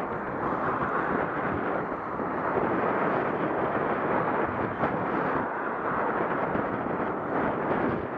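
Wind buffeting the microphone of a camera on a moving bicycle: a steady, dense rushing noise.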